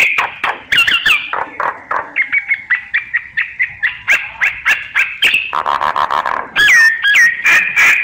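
Myna singing: a fast jumble of clicks and chattering, a run of quick repeated whistled notes, a harsh rasping passage about two-thirds through, then looping whistled slurs and a held whistle near the end.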